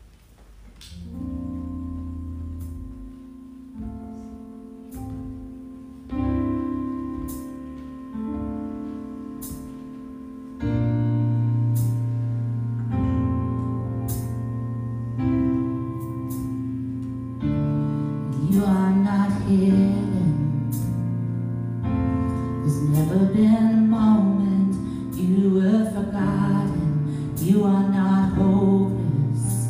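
Worship song: a keyboard plays sustained chords that change every couple of seconds, and a singer's voice comes in about eighteen seconds in and carries the melody over them.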